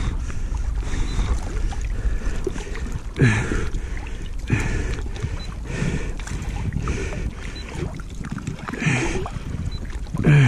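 Water lapping and splashing against an inflatable float tube in short bursts every one to two seconds, over a steady low wind rumble on the microphone.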